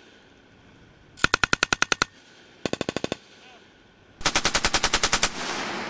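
Belt-fed machine gun firing three short bursts of rapid automatic fire, about a dozen rounds a second; the third burst, about four seconds in, is the longest and loudest and rings out in an echo.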